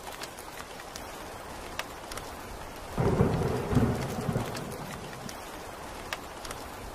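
Steady rain with scattered individual drops, then a sudden clap of thunder about three seconds in that peaks twice in quick succession and rumbles away over about two seconds.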